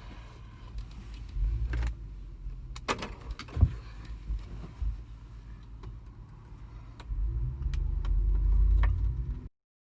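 Scattered metallic clicks and clinks of hand tools and hardware being handled, over low rumbling handling noise; the sound cuts off abruptly near the end.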